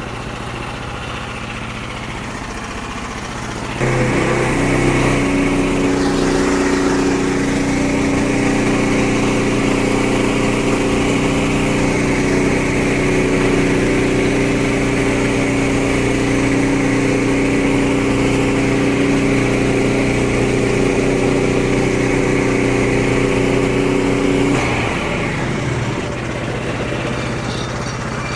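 Portable bandsaw sawmill's small gas engine running at idle, then throttled up at about 4 s to drive the band blade through a tulip poplar log, holding a steady higher pitch for about 20 seconds before dropping back to idle near the end.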